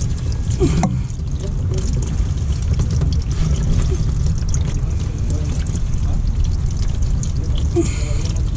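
Hot engine oil pouring in a steady stream from the F-150 EcoBoost's oil pan drain into a drain pan, over a steady low rumble.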